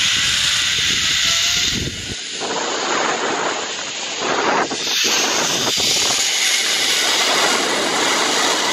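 Zipline trolley pulleys running along the steel cable, with a whine that climbs in pitch as the rider picks up speed, then a loud, steady rush of wind on the microphone from about two seconds in.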